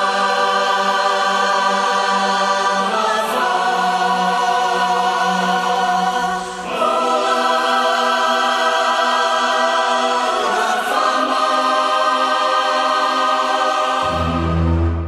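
Music: a choir singing long held chords, four of them, each changing to the next about every three and a half seconds. A deep low note comes in near the end.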